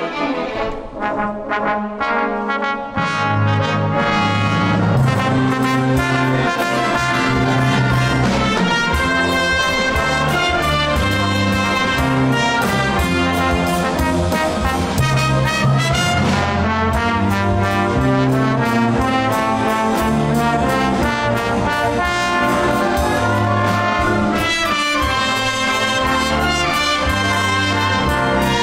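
Symphony orchestra playing live, brass to the fore. A lighter passage opens, and the full orchestra with low brass comes in about three seconds in.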